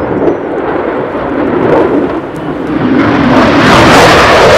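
F-35C's single Pratt & Whitney F135 afterburning turbofan running in a high-G turn with a deep rumble. It grows much louder about three seconds in, with the afterburner lit.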